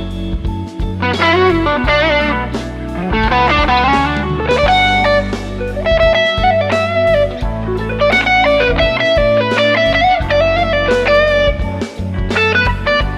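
Electric guitar through a Joyo American Sound tweed-style amp-simulator pedal with a Boss SD-1 overdrive, playing single-note lead lines with string bends and vibrato. Steady low notes sound underneath.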